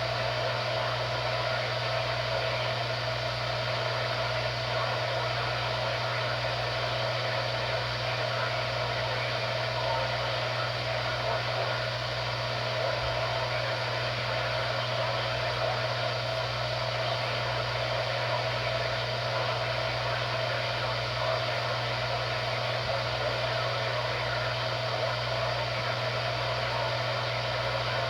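Steady static hiss from a NOAA weather radio receiver, with a low steady hum underneath.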